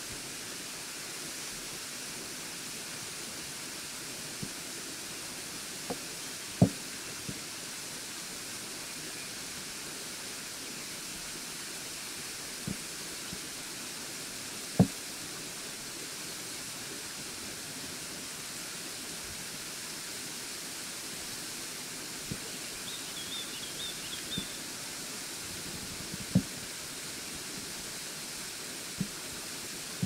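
Steady rushing of the Burgbach waterfall, a tall stream of water falling down a rock face onto boulders. A few short sharp knocks stand out above it, the loudest three spread well apart, and a faint high twittering comes briefly a little past the middle.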